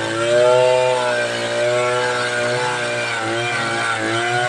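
Two-stroke chainsaw running at high revs while cutting teak lengthwise into boards. Its pitch sags under load and recovers, with dips about three seconds in and again near the end.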